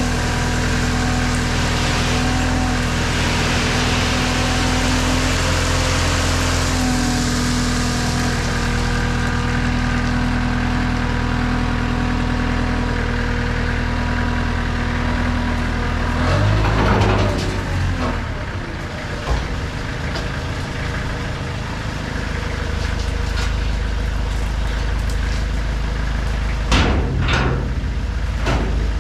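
Engine of a Moffett truck-mounted forklift running steadily, with crushed rock sliding out of its tipped dump hopper onto a pile for the first several seconds. The engine note shifts about halfway through, and a few sharp knocks sound near the end.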